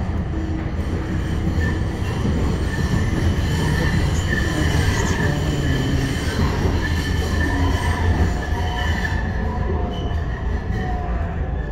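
MBTA Green Line light-rail car heard from inside the cabin while under way: a steady low rumble of wheels on track, with high-pitched wheel squeal through the middle and a falling whine near the end.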